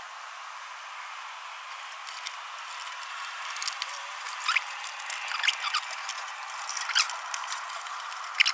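Handling noise from a thermostat's capillary tube being fed through a small hole in a pressure washer's housing: scattered small clicks and scrapes with a few brief squeaks, over a steady hiss.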